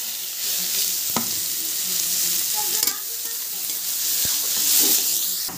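Chopped onions sizzling steadily in hot oil in a kadhai, freshly added to the pan, while a spatula stirs them with a few light knocks against the pan.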